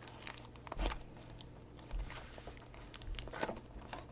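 An adapter and its packaging handled by hand: scattered crinkles and clicks with a few soft thumps.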